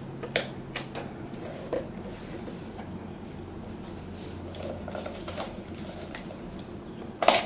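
Soft paper rustles and scattered light clicks of hands handling and smoothing an adhesive-backed printed label onto a box, with a louder rustle just before the end.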